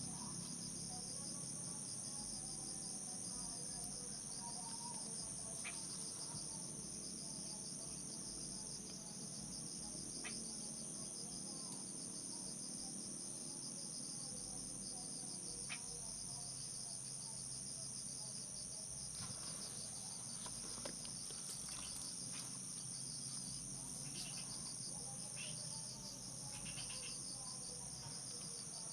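Steady high-pitched insect chorus, a continuous shrill, with a few faint ticks scattered through it.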